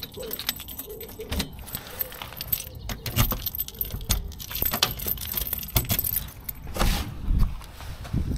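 A bunch of keys jangling, with many sharp, irregular clicks and knocks, as of a key being worked in a door lock.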